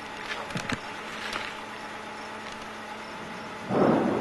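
Wind noise on the camera microphone over a steady low hum. A couple of sharp clicks come about two-thirds of a second in, and a louder gust of wind noise comes near the end.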